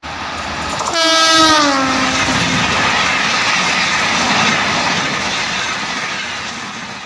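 A passenger train passing at speed close by: its locomotive horn blares about a second in, dropping in pitch as it goes past, then the rush and clatter of the coaches, slowly fading near the end.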